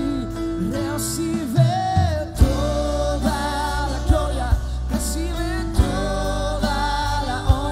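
Live Christian worship music: a voice singing a slow melody over a band of guitars and bass, with regular beats.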